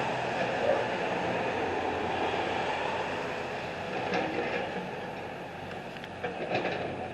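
Heavy construction machinery running with a steady rumble that slowly fades, with a few short metallic knocks about four seconds in and again near the end.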